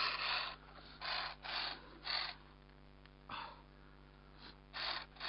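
A player's heavy breathing close to the microphone: about six short, noisy breaths at uneven intervals.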